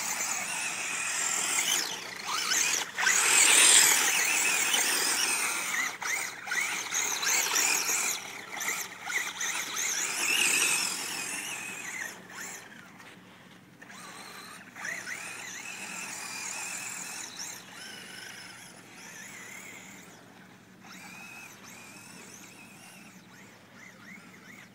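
Traxxas Bandit electric RC buggy's motor whining, rising and falling in pitch with the throttle, over the hiss of its tyres on loose sand as it drifts. Loud for the first ten seconds or so, then fainter as the car runs farther off.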